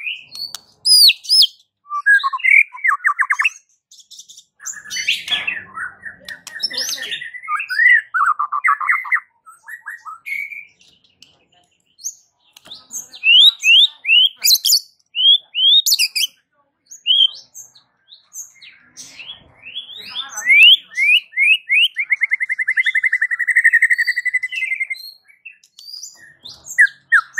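White-rumped shama (murai batu) singing: a varied song of whistles, quick runs of rising notes and fast rattling trills, delivered in phrases with short pauses between them.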